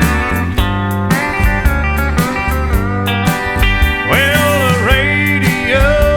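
Background country music: steel guitar sliding over a steady beat, with gliding notes from about four seconds in.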